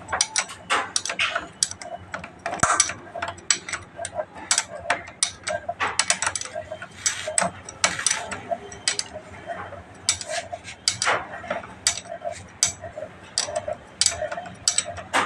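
Hand ratchet wrench clicking in irregular quick runs as nuts on a motorcycle engine are tightened by hand.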